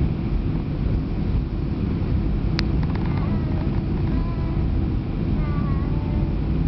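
Airbus A319 cabin noise as the jet rolls along the ground: a steady low rumble of engines and wheels. A single sharp click comes about two and a half seconds in, followed by a few short, faint high-pitched squeaks.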